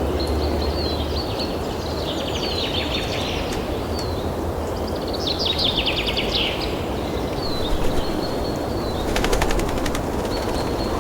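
Birds chirping in short, high-pitched twittering phrases over a steady background noise, with a quick rattle of clicks about nine seconds in.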